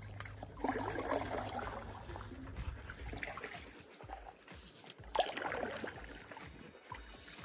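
Stand-up paddleboard paddle strokes in pool water: the blade dips and pulls, with water splashing and trickling off it. The two clearest strokes come about a second in and about five seconds in.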